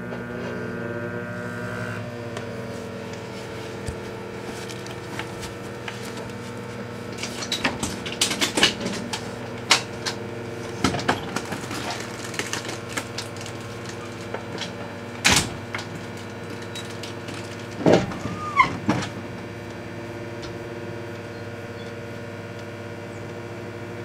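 Microwave oven running with a steady hum, with scattered sharp clicks and crackles through the middle and one louder crack a little past halfway.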